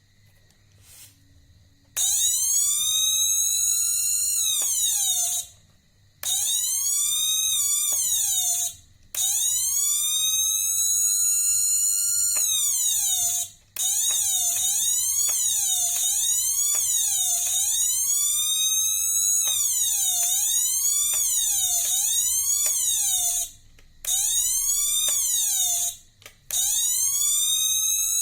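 Home-built two-transistor (BC547/BC557) electronic siren circuit wailing. Starting about two seconds in, a harsh tone glides up, holds, then falls away and cuts off, and this repeats several times. In the middle comes a quicker run of up-and-down wails, about one a second.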